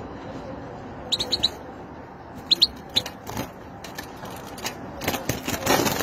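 Caged European goldfinch giving a few short high chirps, in a quick group of three or four and then a pair. About five seconds in, a sudden flurry of flapping wings and scuffling against the wire cage breaks out as a falcon strikes the cage.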